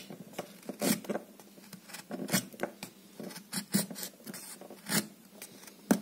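Folding pocket knife blade whittling a wooden stick: a run of short, uneven scraping strokes as shavings are cut off.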